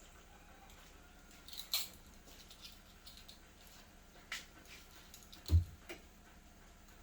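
A few sparse clicks and taps, with one louder, low thump about five and a half seconds in: utensils and containers being handled and set down while mixing cookie dough.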